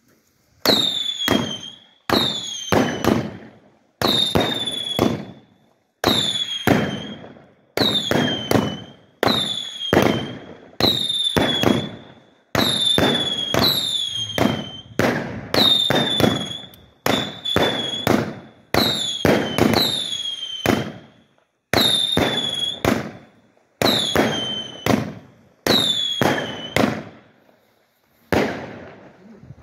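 A fireworks battery (cake) firing shot after shot, about eighteen in all at roughly one-and-a-half-second intervals. Each shot is a sharp report followed by a short whistle that drops in pitch, levels off and fades.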